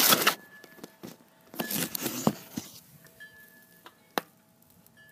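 Handling noise: two short rustling bursts, the second about a second and a half after the first, with a few sharp knocks, then a quieter stretch.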